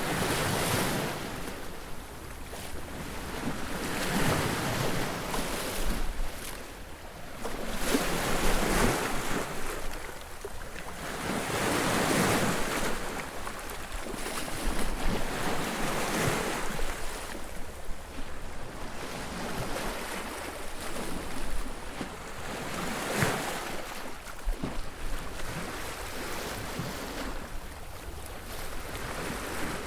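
Surf breaking on a beach: wave after wave crashing and washing up the shore, swelling and fading about every four seconds, with some wind on the microphone.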